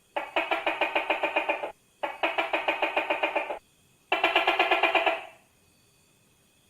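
Tokay gecko calling in three bursts of rapid rattling pulses, about eight a second, each burst lasting about a second and a half with short pauses between.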